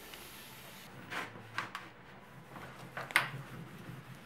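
Mr Sheen aerosol can hissing for about a second as it sprays onto a pressed tin panel, followed by a few short scrapes and knocks as the panel is wiped with a cloth and handled, the sharpest about three seconds in.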